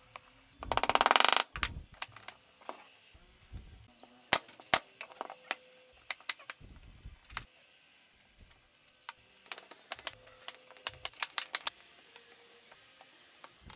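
Plywood blocks and jig parts being handled and set down on a wooden workbench: scattered wooden clicks and knocks. A brief loud rattling buzz comes about a second in, and a quick run of light taps comes around ten to eleven seconds in.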